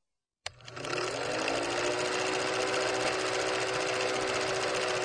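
Film projector running: a steady, rapid mechanical clatter with a faint hum, starting about half a second in.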